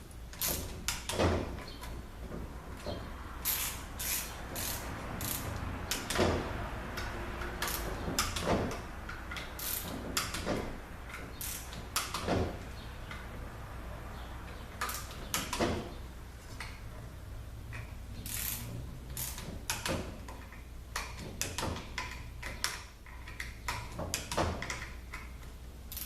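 A ratchet and torque wrench give scattered, irregular sharp clicks as valve body bolts are run down and tightened to about 70 inch-pounds.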